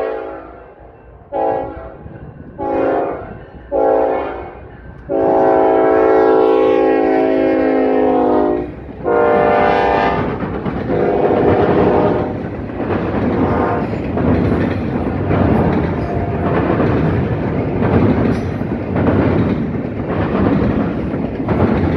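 Norfolk Southern diesel locomotive horn blowing a series of blasts for the road crossing: three short blasts, a long blast of about three and a half seconds, then two shorter blasts as the locomotives pass close by. After that comes the steady rumble and wheel clatter of double-stack intermodal container cars rolling past on the rails.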